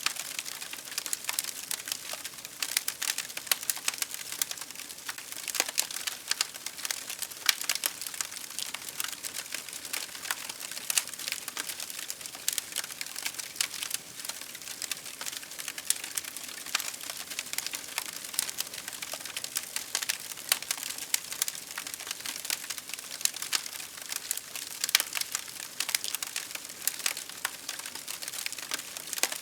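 Wood fire crackling: a dense, irregular stream of sharp pops and snaps over a faint hiss.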